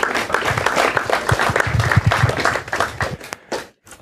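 Audience applauding, a dense patter of many hands that dies away about three seconds in, leaving a few last scattered claps.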